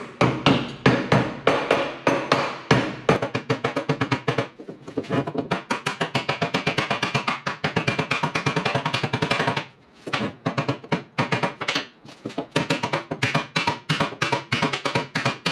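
Soft-faced mallet tapping the side cover of a Subaru R160 rear differential into its housing, seating it: quick repeated strikes, a few a second at first and then faster, with two short breaks in the second half.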